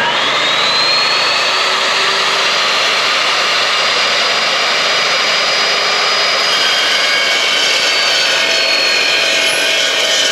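Evolution S380CPS 15-inch metal-cutting chop saw spinning up with a fast-rising whine, then its blade cutting through half-inch-thick steel angle with a loud, steady, high screech. The whine sags slightly in pitch in the second half as the blade works under load.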